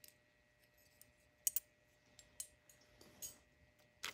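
Faint, scattered clicks of costume jewelry being handled, small metal and glass pieces tapping together, with a short rustle starting just before the end.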